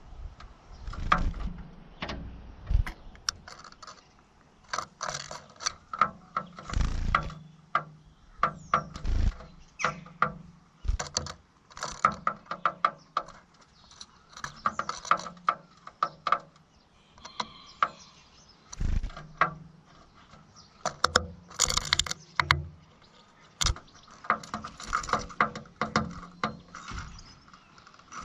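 Blue tit tapping its beak against window glass in quick, irregular bursts of sharp clicks, attacking its own reflection.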